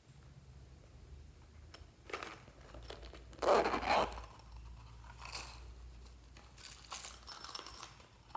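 Glossy slime being handled and mixed by hand: a series of short noisy squishes and crackles, the loudest about three and a half seconds in.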